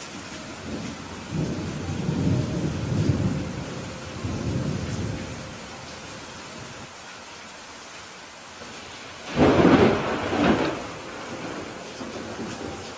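Steady rain with thunder: a low rolling rumble in the first few seconds, then a sharper, louder thunderclap about nine seconds in, with a second peak just after it before it fades.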